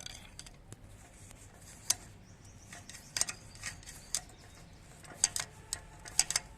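Gears in an opened Massey Ferguson 1035 tractor gearbox turned by hand with the clutch pressed, giving irregular sharp metallic clicks, some in quick pairs.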